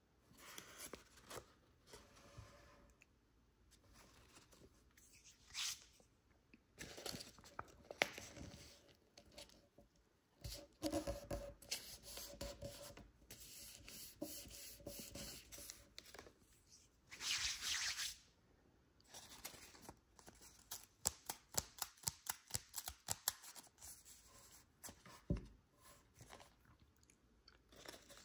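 Origami paper being folded into a crane: irregular rustling and crinkling as the sheet is handled and creased. There is a longer crackle about two-thirds of the way through, then a quick run of sharp crisp crackles in the last third.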